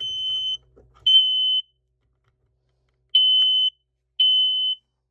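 Kidde i9060 battery smoke alarm sounding on its test button: loud, high, steady beeps in the temporal-three evacuation pattern, two beeps closing one group, a pause of about a second and a half, then two beeps of the next group.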